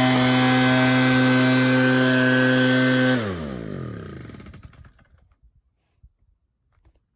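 Echo PB-8010 backpack blower's two-stroke engine running at a steady speed, then about three seconds in it cuts out and winds down to silence within a couple of seconds. This is the stalling fault the unit is brought in for: it starts and runs fine, then dies for no apparent reason.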